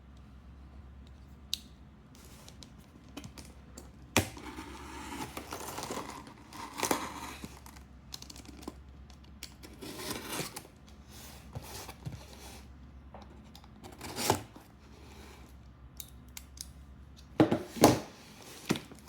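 Packaging being handled and opened: intermittent rustling and tearing, broken by sharp clicks and knocks, with the loudest knocks coming close together near the end.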